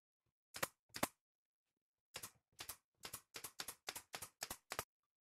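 Pneumatic brad nailer firing nails into a pine frame: two sharp shots, then after a pause a quick run of about nine more at roughly three a second.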